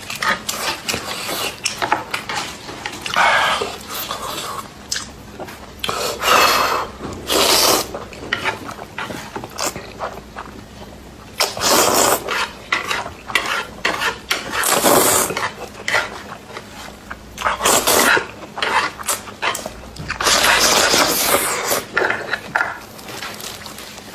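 A person slurping noodles and chewing close to the microphone, in repeated bursts of a second or two, with small clicks from chopsticks and dishes in between.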